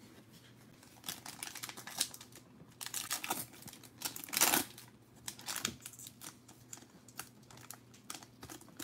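Foil wrapper of a trading card pack crinkling and tearing as it is opened by hand, in short, scattered crackles and rustles that start about a second in.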